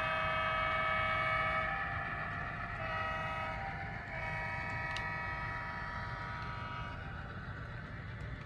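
Sound-equipped HO scale Santa Fe diesel locomotive's multi-chime horn, played through its small onboard speaker, over the steady rumble of its diesel engine sound. One horn blast ends about two seconds in, a short one follows about a second later, then a longer one that fades out near the end.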